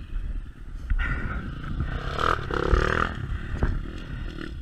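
Beta 300RR two-stroke dirt bike engine running on a trail ride, with a couple of sharp knocks and some clatter from the bike over rough ground.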